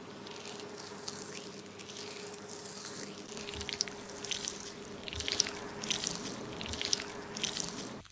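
Fingers scrubbing shampoo lather through hair and scalp: irregular wet squishes and foamy crackles that grow busier after about three seconds, over a faint steady hum.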